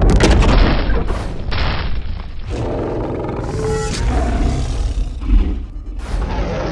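Cartoon monster-battle sound effects: a sudden loud boom right at the start, then more crashing hits and monster roaring layered together.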